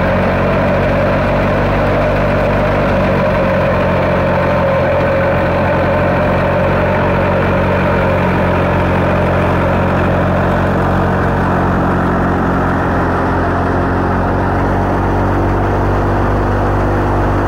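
2019-model tractor-driven wheat thresher running at full work, its drum, belts and pulleys making a steady loud mechanical din over the deep steady drone of the tractor engine driving it, as it chops wheat straw into bhusa. A higher whine in the mix fades about halfway through.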